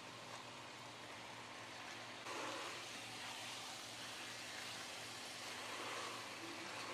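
Food sizzling in a pan on the stove, a steady hiss that steps up in level about two seconds in, over a faint low hum.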